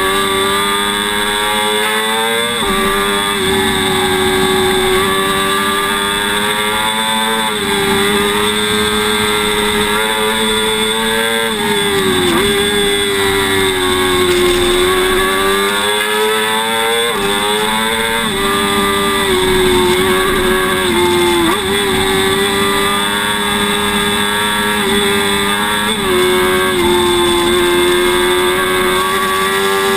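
Sport motorcycle engine at high revs under hard track riding, with wind rush. The engine pitch drops sharply and climbs again about every four to five seconds as the rider shifts and brakes for corners.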